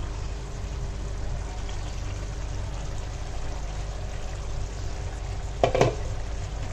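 Chicken curry simmering in a frying pan, bubbling and sizzling steadily over a low hum. A brief louder sound comes about five and a half seconds in.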